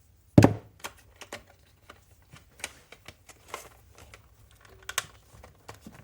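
Handling noise from a plastic RC buggy and its wheels: one loud knock about half a second in, then a string of irregular light clicks and taps, with a sharper click near the end.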